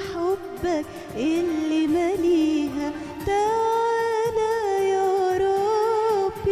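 A woman singing an Arabic Christmas hymn into a microphone: ornamented, sliding phrases at first, then from about halfway a long held note with vibrato.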